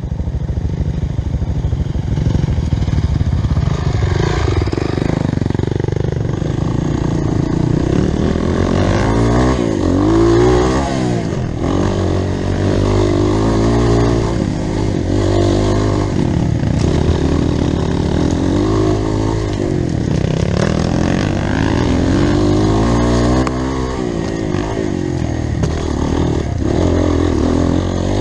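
Off-road motorcycle engine running hard on a trail, its revs rising and falling again and again with throttle and gear changes.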